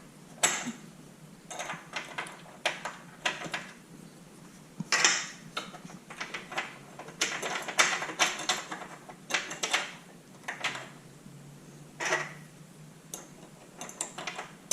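Irregular metal clinks and knocks as a light-bar bracket and its bolts and washers are handled and slid along a roof-rack platform, with clusters of quick clatter around the middle.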